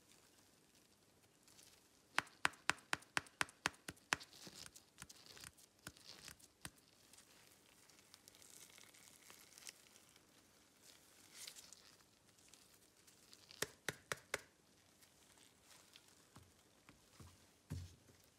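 Faint handling of a Samsung Galaxy A50 in disposable-gloved hands: a quick run of about nine sharp clicks or taps about two seconds in, glove rubbing and rustling on the phone, and another short cluster of clicks later. Near the end comes a soft thump as the phone is set down on a rubber mat.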